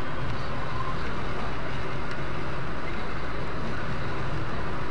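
Steady engine and tyre noise of a car driving along a road, heard from inside the cabin through a dashcam.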